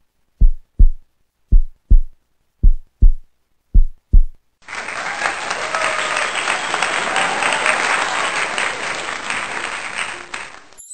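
A heartbeat sound effect: four double thumps about a second apart. About four and a half seconds in, a burst of crowd cheering and applause cuts in abruptly and runs until just before the end.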